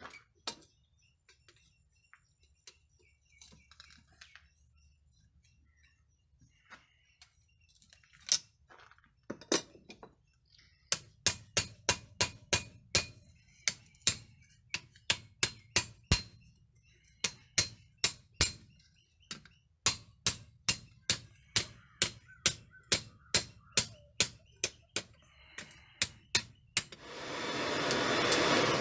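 Hammer blows on red-hot steel on a round steel block anvil: a few scattered taps, then steady ringing strikes about three a second from about ten seconds in. Near the end, a loud hiss swells and fades.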